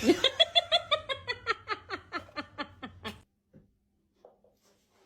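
A person laughing hard in a quick run of "ha" pulses, about five a second, falling in pitch and fading out after about three seconds.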